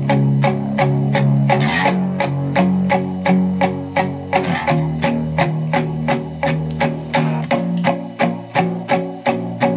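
Guitar music played back from a disc in a Sony RCD-W100 CD player and heard through loudspeakers: an even run of plucked notes, about three to four a second, over held bass notes. The repaired drive is playing the disc.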